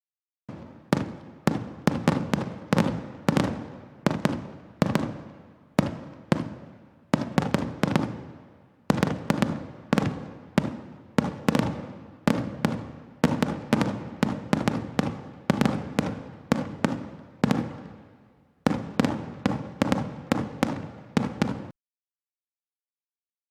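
Fireworks going off in a rapid series of sharp bangs, two to three a second, each with an echoing tail, broken by a few brief pauses and stopping about two seconds before the end.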